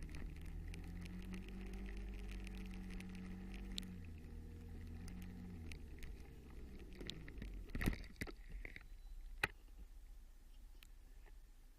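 Car engine running, its pitch shifting slightly a few times. About eight seconds in comes a loud thump, and a sharper knock follows about a second and a half later.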